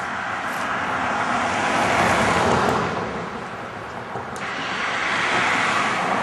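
Road traffic: two vehicles pass close by, one after another, their tyre and engine noise swelling to a peak about two seconds in and again about five seconds in.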